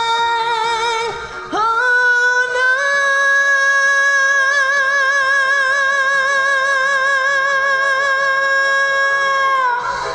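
Female singer holding a long high note with vibrato over backing music: a short note first, then after a brief break a note that slides up and is held for about seven seconds before stopping near the end.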